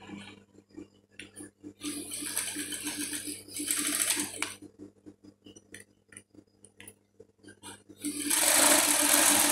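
Industrial lockstitch sewing machine stitching in short runs: one of about two seconds near the start, a shorter one just after, and a longer run near the end. The motor hums steadily throughout, with light clicks between the runs.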